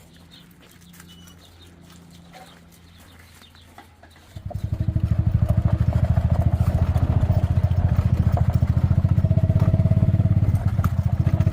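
A small vehicle engine starts up about four seconds in and then runs steadily with an even, rapid chugging beat. Before it there is only a faint low hum.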